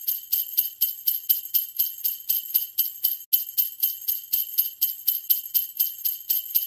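Sleigh bells shaken in a steady rhythm, about four jingles a second.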